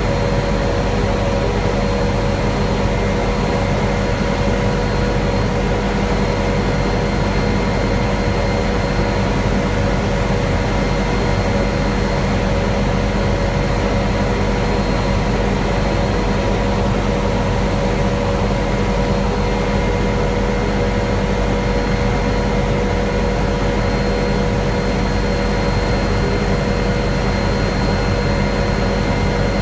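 Helicopter in steady cruise flight, heard from inside the cabin: an unbroken drone of engine and rotors with several constant whining tones.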